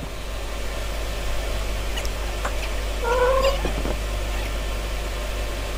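A single short animal call, rising slightly in pitch, about three seconds in, over a steady low hum and a few faint clicks.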